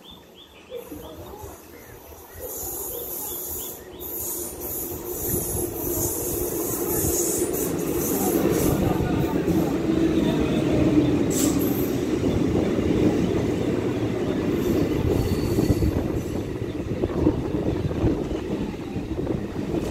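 Electric multiple unit (EMU) suburban train arriving and running in alongside a platform: a high hissing squeal from the wheels for a few seconds as it approaches, then a steady rumble of wheels on rail that grows louder and stays loud while the coaches pass, with one sharp clack about eleven seconds in.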